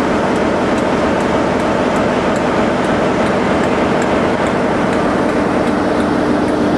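Class 47 diesel locomotive with its Sulzer twelve-cylinder engine running steadily as it rolls slowly by at close range, with light, regular ticking from the running gear.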